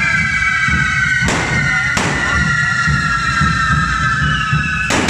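Handheld carretilla fireworks burning with several steady high whistles that slowly sink in pitch. Sharp firecracker bangs come about a second in, at two seconds and near the end, over a dense low rumble.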